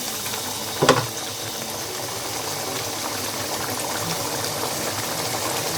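Crushed tomatoes and spiced yogurt masala sizzling and bubbling in a karahi as they fry, a steady hiss, with one sharp clink about a second in.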